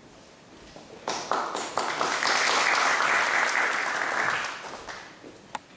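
Audience applauding: the clapping starts about a second in, swells, and dies away after about four seconds, followed by a couple of sharp knocks.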